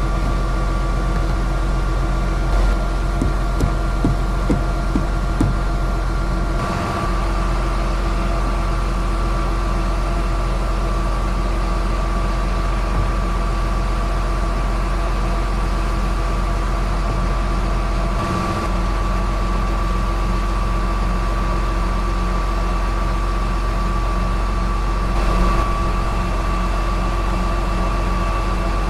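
The 2005 John Deere sprayer's engine runs at a steady drone, with a constant whine above it. A few light clicks come in the first few seconds.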